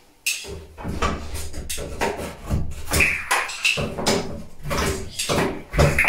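Irregular knocks, clunks and rattles from a sliding door hanging on its roller rail as the spacers under it are pulled out and the door settles onto its rollers.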